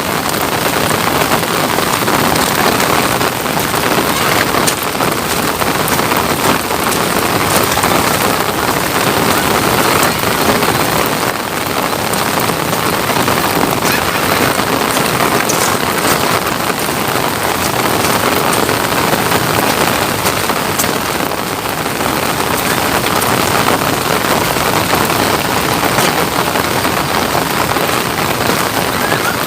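Steady rain falling, a dense even hiss with many small drop ticks throughout.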